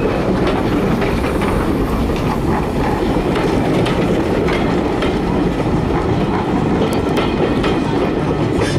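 Passenger coaches of a steam-hauled train rolling past close by, a steady rumble with the wheels clicking over the rail joints.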